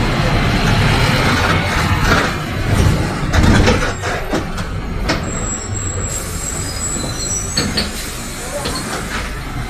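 Mercedes-Benz OF 1721 city bus heard from inside the cabin while running, with engine and road noise that eases after about four seconds. About five seconds in a thin, high squeal sounds, followed by several shorter squeals that step lower in pitch.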